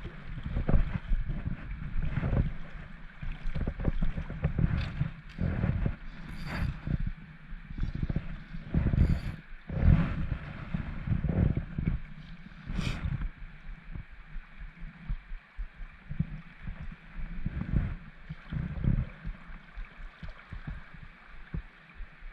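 Steady rush of river water, with gusts of wind buffeting the camera microphone and a few sharp clicks.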